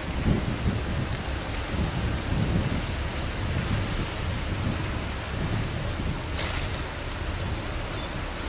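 Wind gusting over the microphone, rumbling unevenly over a steady outdoor hiss; the gusts are strongest in the first few seconds.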